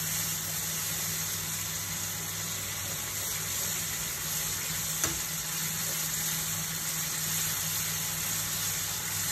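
Onion, tomato and spice masala sizzling in a frying pan on a gas burner as it cooks down, stirred with a spoon, with one light knock about five seconds in.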